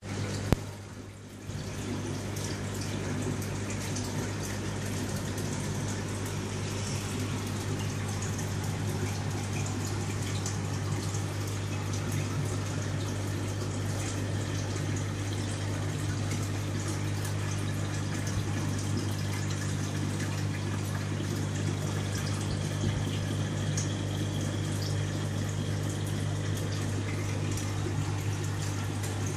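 Aquarium water bubbling and splashing from the tank's aerator, over a steady low hum from the pump. A single sharp knock sounds about half a second in.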